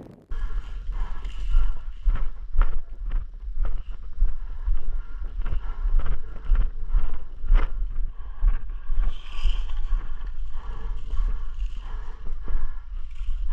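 Wind buffeting the microphone with a deep, uneven rumble, over a run of irregular short clicks and knocks.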